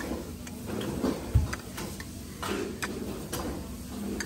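Light clicks and taps of kitchen utensils, irregular at about two to three a second, with one dull thump about a second and a half in.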